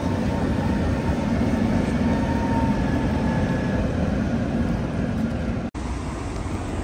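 Old Tatra T3 tram passing on street track: a steady low rumble of wheels on rails with a faint steady whine. A brief dropout near the end, after which a similar rumble continues.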